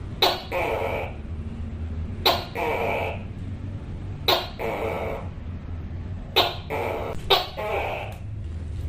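Tokay gecko giving its repeated two-part "to-kay" call about once every two seconds. Each call is a sharp clicking onset followed by a longer, nasal syllable, over a steady low hum.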